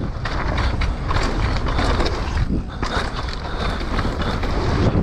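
Mountain bike ridden fast down a rough enduro race stage: a continuous rumble of tyres and wind, with frequent rattles and knocks from the bike over the ground.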